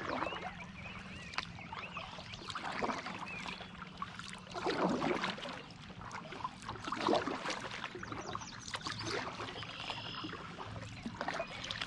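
Kayak paddle strokes: the blade dipping and water dripping and splashing in an irregular patter, with louder strokes about five and seven seconds in.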